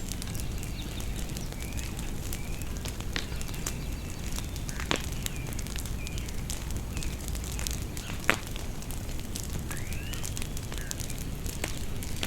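Bonfire crackling and popping steadily over a low rumble, with a sharper pop a little past eight seconds in. Birds chirp now and then in the background.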